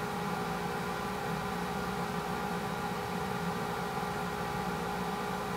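A steady mechanical hum with hiss and several constant tones, unchanging throughout.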